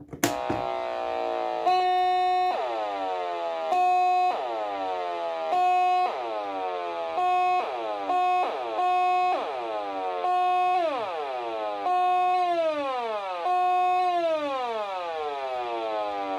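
A homemade breadboard synthesizer's oscillator plays a buzzy, reedy tone, triggered about nine times at uneven intervals. Each note holds a steady pitch, and when it is let go the pitch glides down like a siren winding down. That slow fall is the attack/release envelope generator's release stretching out the falling edge of the note.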